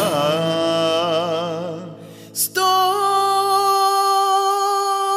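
Folk song with a man's voice holding and letting fade the last note of his sung line over a low sustained instrumental accompaniment. About two and a half seconds in, a woman's voice takes up one long held note, and the accompaniment drops out underneath it.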